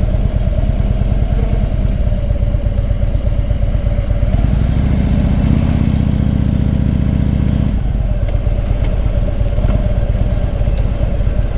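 Harley-Davidson Road King sidecar combination's V-twin engine running on the move. About halfway through, the engine note swells for about three seconds, then drops back.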